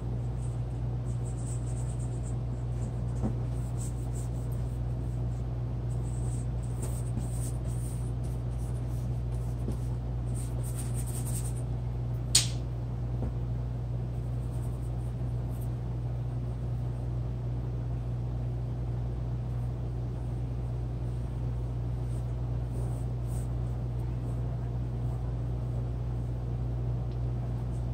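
A steady low hum runs throughout. Faint scratching comes in the middle, and a single sharp click follows about twelve seconds in.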